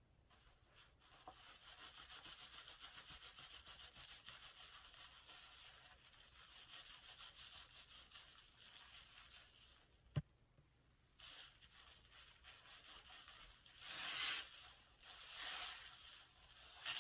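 Hands squeezing and kneading a sponge soaked with foaming hand soap lather, the foam giving a soft, fine crackling squish. A single sharp click comes about ten seconds in, and two louder squeezes follow near the end.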